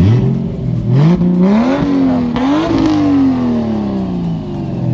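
Car engine revving: the pitch climbs over the first couple of seconds, peaks, then winds down slowly. The sound cuts off suddenly at the end.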